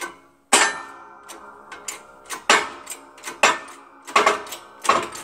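About six sharp, ringing metal clangs, roughly one a second, the one about half a second in the loudest. They come from a rust-seized CV axle stub being forced out of the front wheel bearing and steering knuckle in a 20-ton shop press.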